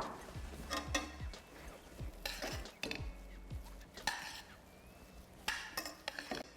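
A spoon stirring seasoned rice in a pot, in short, irregular scrapes and clinks against the pot.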